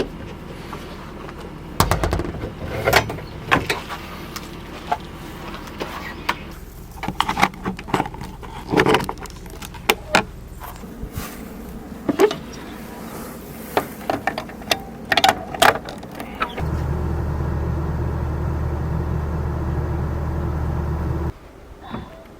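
Irregular clicks and clatter of objects being handled, then a steady low electric hum for about five seconds that cuts off suddenly.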